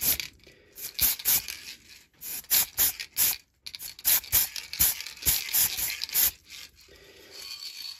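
Quick, irregular rubbing and scraping strokes of a disposable-gloved hand turning a bottle cap between its fingers, with short pauses between bursts.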